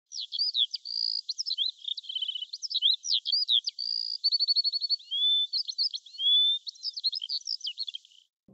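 A songbird singing a fast, varied song of high chirps, slurred whistles and rapid trills, thin and high with no low sound at all, stopping just before the end.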